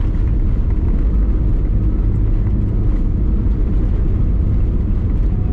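Airbus A320neo cabin noise heard from a window seat: a steady, deep rumble of the engines and the airframe rolling on the runway just after landing.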